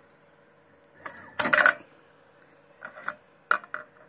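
3D-printed silk PLA part being pried off a PET-surfaced print bed: a loud burst of crackling clicks about a second and a half in as it comes free, then a few sharper plastic clicks near the end.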